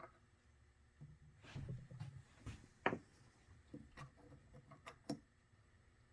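Scattered faint clicks and knocks of tools and metal bicycle parts being handled, the sharpest about three seconds in and a quick cluster of clicks near the end.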